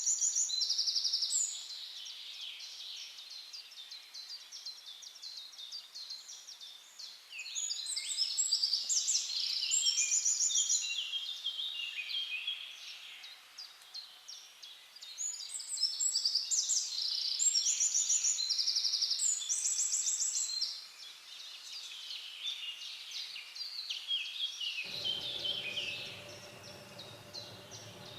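Songbirds singing, a dense chorus of rapid high chirps and trills that swells in loud bouts every several seconds with softer calls between. Near the end a low steady hum joins underneath.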